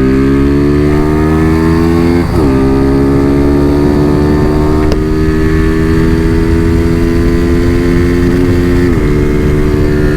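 Tuned single-cylinder Honda Fan 125 engine (bored out to 170cc) running hard under load, its note climbing slowly. The pitch dips briefly about two seconds in and again near the end before picking back up.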